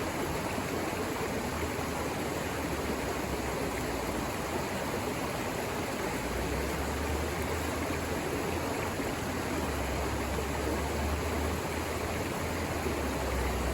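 Steady rushing of water, with a deeper rumble underneath from about six seconds in.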